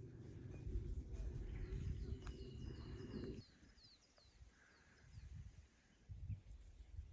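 A bird singing a series of short, quick, falling chirps over a faint outdoor background, with a low rumble that stops suddenly about three and a half seconds in.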